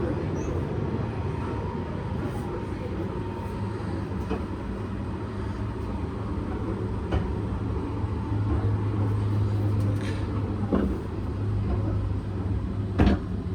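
Running noise of the Sunrise Express sleeper train heard from inside the carriage: a steady low rumble with a hum that strengthens in the second half, a few light clicks, and one sharp knock near the end.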